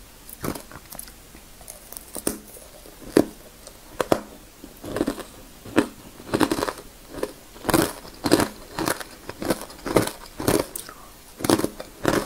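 Thin ice coated in matcha powder being bitten and chewed: a few separate sharp cracks over the first four seconds, then a steady run of crunches about two a second from about five seconds in.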